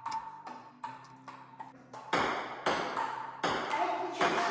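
Table tennis ball bouncing repeatedly on a paddle, a light ping about three times a second. About two seconds in, louder and less regular hits begin: a rally, the ball struck by paddles and bouncing on the table.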